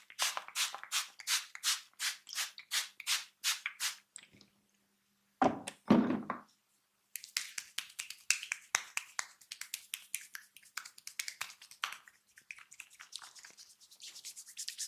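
Percussive massage strokes by hand: a steady run of sharp slaps or chops, about three to four a second, then two heavier, deeper thuds around six seconds in, then a fast clattering patter of lighter hand taps.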